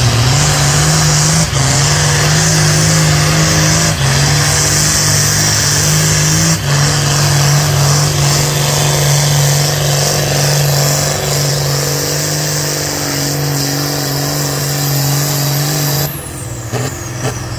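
John Deere tractor's diesel engine running hard under full load in a tractor pull, holding a steady high pitch with a few brief dips, then dropping off suddenly near the end.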